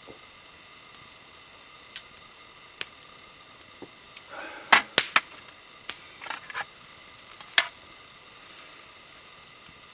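A series of sharp clicks and knocks of hard objects, a handful scattered through and a quick cluster of louder ones around the middle, over a faint steady background.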